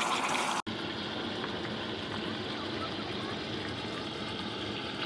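Brisket searing in ghee in an Instant Pot on high sauté: a steady sizzling hiss. It breaks off abruptly less than a second in, and a quieter, even hiss carries on after the break.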